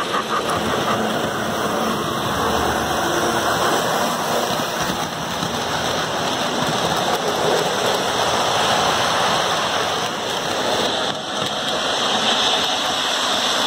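Model trains running on metal track: a steady rushing noise of wheels and motors, growing brighter and hissier in the last few seconds.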